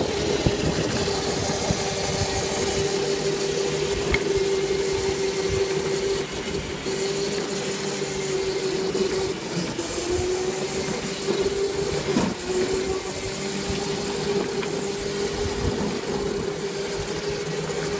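Electric drive motors of a modified 36 V Lightning McQueen Power Wheels ride-on car, a steady whine over the rush of wheels rolling on paving, dipping slightly in pitch about ten seconds in, with a single knock about twelve seconds in.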